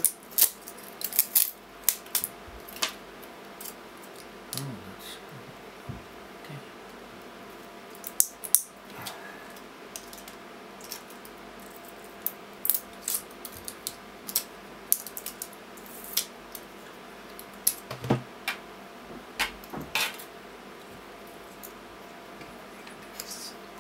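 Pliers pulling and bending nickel connecting strips off 18650 lithium-ion cells: irregular metallic clicks, snaps and clinks, metal on metal.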